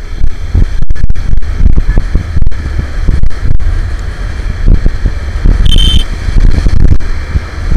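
Wind buffeting the microphone of a Suzuki Gixxer SF 250, ridden at road speed, with the bike's single-cylinder engine and road noise beneath it. A short, high steady tone sounds about six seconds in.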